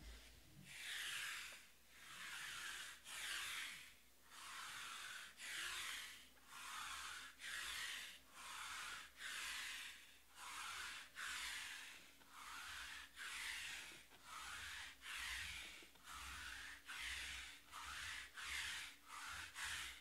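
Sticky lint roller rolled back and forth over a felt table mat, a rasping rub on each stroke, about one stroke a second and a little quicker near the end.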